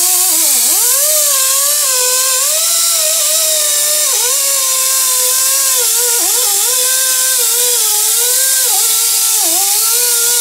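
Die grinder with a small abrasive disc running against the differential housing's gasket surface, grinding off old gasket and silicone material. It makes a high whine over a loud hiss, and the pitch dips briefly several times as the disc bears on the metal.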